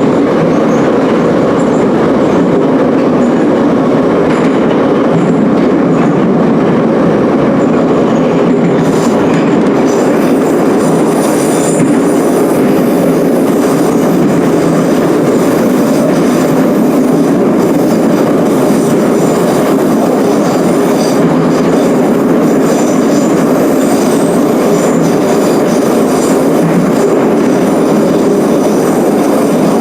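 Ezh3/Em-508T metro train running at speed between stations, heard from inside the car: a steady loud rumble of wheels on rail. A faint high wheel squeal joins in about a third of the way through.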